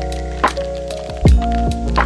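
Lo-fi hip hop music: a mellow beat with kick and snare hits over sustained keyboard chords and bass.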